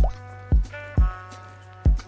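Background music: a track with held chords over a steady low bass and a deep kick drum hitting about four times.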